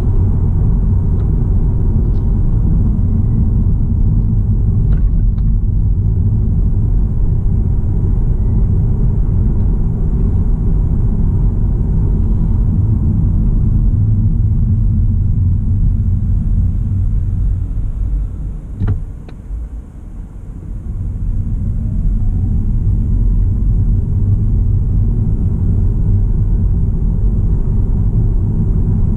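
Steady low road and tyre rumble heard inside the cabin of a Mini Countryman plug-in hybrid driving at about 45–70 km/h. The rumble drops away for a few seconds about two-thirds of the way through, with a single click.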